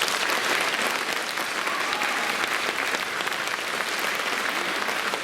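Concert-hall audience applauding steadily, a dense patter of many hands clapping.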